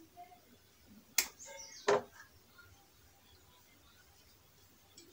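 Two sharp clicks about two-thirds of a second apart, a little over a second in, from a whiteboard marker being handled: its cap pulled off and clicked onto the other end. Faint room tone otherwise.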